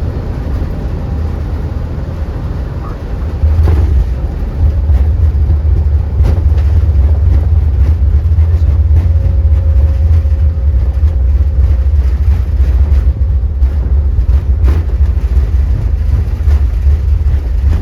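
Steady low rumble inside an Airbus A330's cockpit during the landing rollout after touchdown. It gets louder about three and a half seconds in and then holds, with a few faint clicks.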